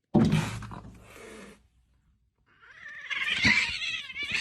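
A cat yowling: a long, wavering, high cry in the second half, after a loud rush of noise in the first second and a half.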